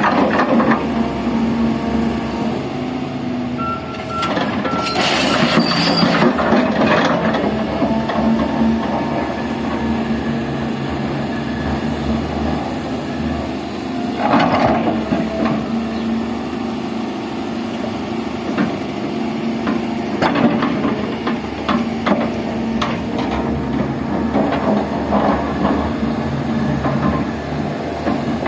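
Volvo EC300D crawler excavator running steadily at work, its engine drone constant throughout. Louder rushing, scraping surges come about five seconds in, near the middle and about two-thirds of the way through.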